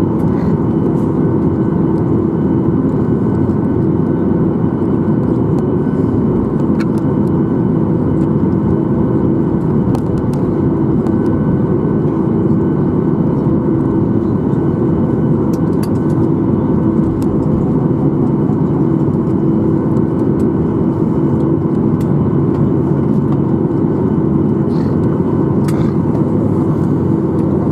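Steady cabin noise inside a Boeing 737-800 on the ground after landing: a constant hum of engines and air conditioning with a steady tone, and a few faint clicks.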